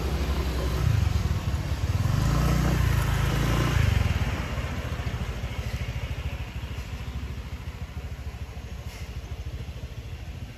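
Motor scooter engine running loudly for a few seconds, then fading as the scooter rides off down a narrow lane.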